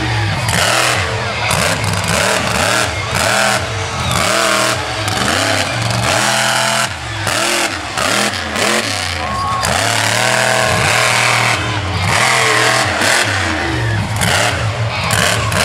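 Avenger monster truck's engine revving hard, its pitch rising and falling again and again as the truck is driven and jumped.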